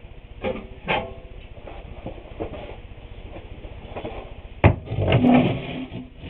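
Wooden boards being handled: a couple of light knocks, then a sharp wooden knock about four and a half seconds in, followed by about a second of scraping and rubbing.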